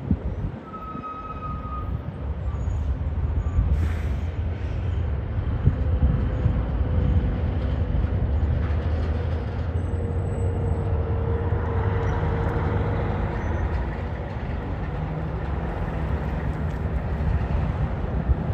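Diesel engines of semi tractor-trailers running as the rigs drive past, a steady low rumble that grows louder about two seconds in and then holds. A brief hiss comes about four seconds in.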